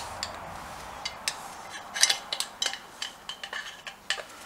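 Light metallic clicks and clinks, scattered irregularly and loudest about two seconds in, from small BSA C15T gearbox parts being handled and fitted together by hand.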